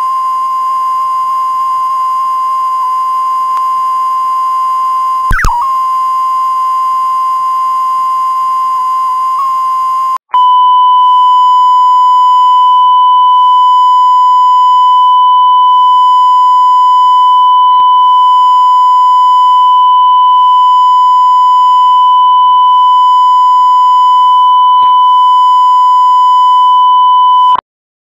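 Steady single-pitched test tone, the 1 kHz line-up tone that accompanies a TV station's colour-bar test card. It first plays over a faint hiss with a brief click about five seconds in, drops out for a moment about ten seconds in, and returns louder and clean until it cuts off just before the end.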